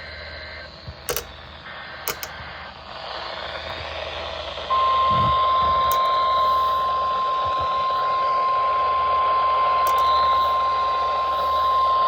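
NOAA Weather Radio broadcast over static: faint warbling data bursts of the EAS header and a few clicks, then about five seconds in the steady single-pitch 1050 Hz weather radio alert tone starts and holds, the signal that a warning message follows.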